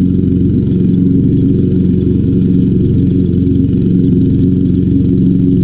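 Toro Super Recycler walk-behind mower's 159cc overhead-valve Toro TXP engine running at a steady speed.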